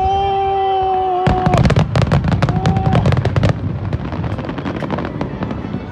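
Aerial fireworks crackling: about a second in, a rapid flurry of many sharp pops breaks out, then thins to scattered pops over the following seconds. A steady held tone sounds before the crackling starts.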